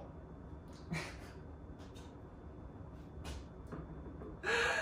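A few faint clicks and scrapes from a corkscrew and glass wine bottle being handled, then a short breathy exhale near the end.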